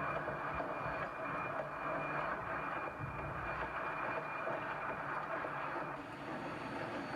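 Milwaukee Road 261, a 4-8-4 steam locomotive, rolling along, heard close beside its driving wheels. A steady noise of wheels on rail and running gear, with no distinct exhaust beat.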